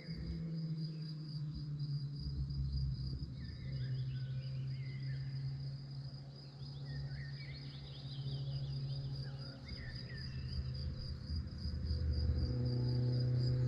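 Crickets chirping in a steady pulsing chorus, with scattered short bird chirps, over a low steady hum that grows louder near the end.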